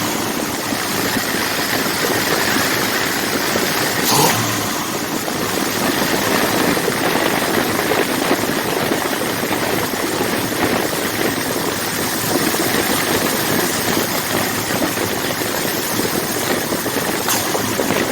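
Freshly rebuilt engine of a 1979 Ford F-150 running steadily, with a sharp click about four seconds in as the throttle is kicked off the fast-idle position. The engine will not idle properly, for a reason the owner can't find.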